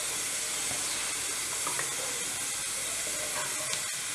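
Steady hiss of a stovetop pressure cooker letting off steam, with a few faint scrapes of a wooden spoon stirring tomato sauce in a clay casserole.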